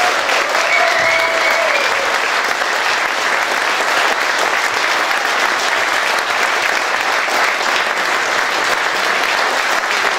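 Concert audience applauding steadily at the close of a performance.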